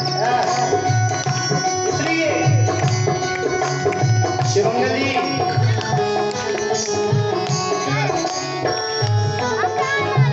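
Indian devotional bhajan music: a hand-drum rhythm with a steady beat under a held drone tone and a bending melody line, without clear singing.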